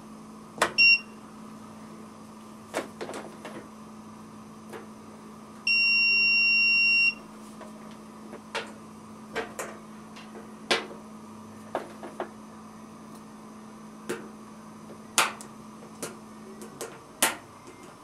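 Innova 3320 digital multimeter's continuity tester beeping as the probes touch the new dryer thermal fuse: a short beep about a second in, then one steady beep of about a second and a half near the middle. The beep means the fuse has continuity and is good. Scattered light clicks and taps come from the probe tips and the fuses being handled.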